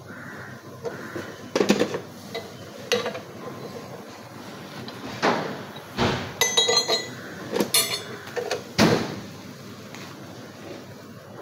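Hand tools knocking and clinking against a steel Hyundai i20 steering rack held in a vise: about ten irregular metal-on-metal knocks, a few of them ringing briefly.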